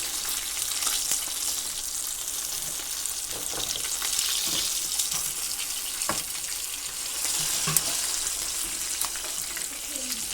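Chicken wings deep-frying in hot oil during their second fry: a steady sizzle with a few sharp clicks.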